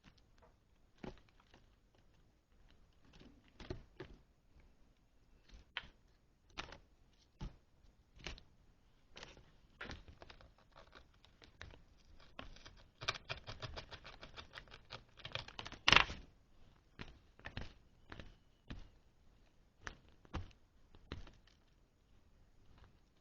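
Small objects being handled: scattered light clicks and taps, then a fast rattling run of clicks about thirteen seconds in that ends in one louder clack.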